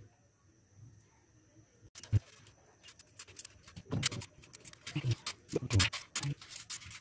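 Hard-boiled eggs being cracked and peeled by hand over a basin of water: irregular small crackles and clicks of eggshell breaking away, beginning about two seconds in.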